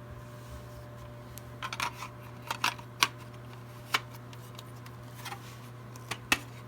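A series of irregular sharp clicks and small taps, about nine in all, spread over several seconds, over a steady low electrical hum.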